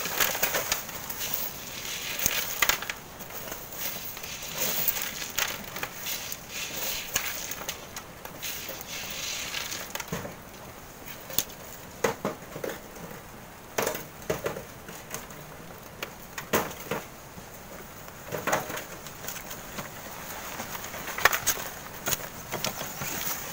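Shovels scraping into sand and gravel and metal wheelbarrows rattling over stony ground, heard as a run of irregular scrapes and knocks.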